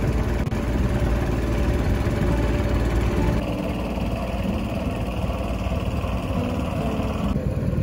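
Engine of a small river motorboat running steadily under way.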